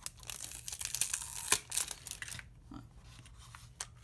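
Clear plastic packaging crinkling and tearing as it is opened by hand, a dense crackle for about the first two and a half seconds, then a few light clicks.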